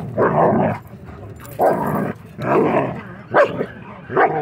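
Dogs barking and growling as German Shepherds wrestle a husky-shepherd mix pinned on its back, in five harsh bursts about a second apart. A short whining cry comes near the end.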